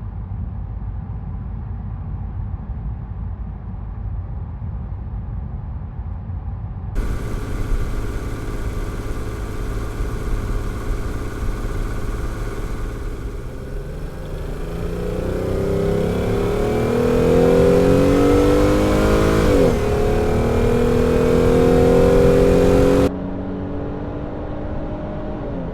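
Jeep Grand Cherokee SUV engine: a steady low rumble, then a fuller sound about seven seconds in. From about fourteen seconds the engine accelerates with rising pitch, dips briefly near twenty seconds as it shifts gear, and climbs again. It cuts off suddenly near twenty-three seconds, back to the low rumble.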